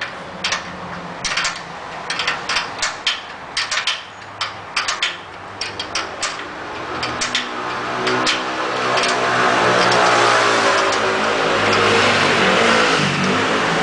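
Quick runs of metallic ratchet-wrench clicks as the rear wheel adjuster is tightened. From about halfway, a passing motor vehicle's engine grows louder, its pitch rising then falling, and drowns out the clicks before fading near the end.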